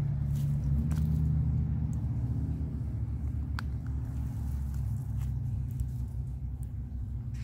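A low, steady engine-like rumble that slowly fades, with a few faint ticks of hens' beaks dipping into a water bowl.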